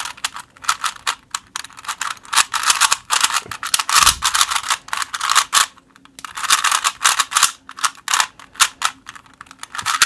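Rubik's-brand 3x3 speed cube being turned fast in a speedsolve: rapid plastic clicking and clacking of the layers in bursts, with short pauses between runs of moves. The turning catches now and then, by the solver's account.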